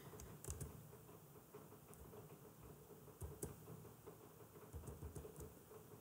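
Near silence broken by a few faint, scattered clicks of a computer keyboard and mouse.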